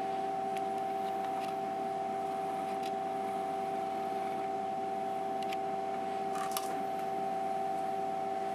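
Emco Compact 5 CNC lathe running idle with a steady hum and a constant pitched whine. There are a few faint ticks now and then.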